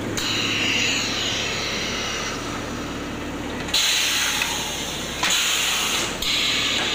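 Brick extruding machine running with a steady hum, overlaid by hissing bursts of compressed air from its pneumatic cutter cylinder; the loudest hiss comes about four seconds in and lasts a second and a half, and another starts near the end.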